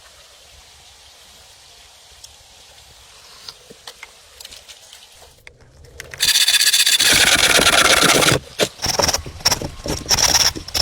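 Faint background with a few light clicks, then about six seconds in a loud rasping scrape against wood that lasts about two seconds, followed by several shorter scrapes.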